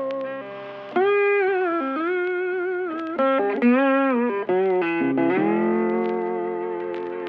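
Background music: a plucked electric guitar playing a slow melody, with notes gliding and ringing out.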